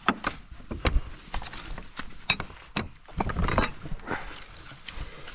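Electric mountain bike going over rough, stony ground: irregular sharp knocks and clatter over a low rumble.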